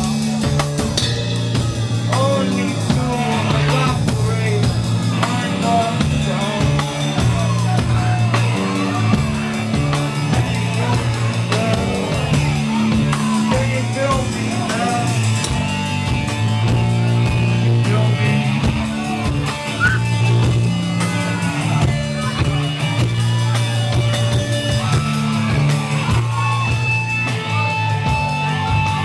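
Live rock band playing: drum kit and electric guitars, with a singer's voice over them.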